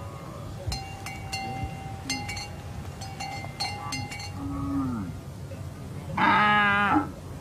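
Herd of cattle on the move: bells clinking irregularly, a short low call about four and a half seconds in, then one loud, wavering call from an animal at about six seconds.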